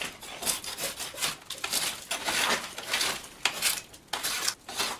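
A sharpened old metal spatula scraping cement and old wallpaper off a log wall: repeated rasping strokes, about two or three a second, one of them longer a little after two seconds in.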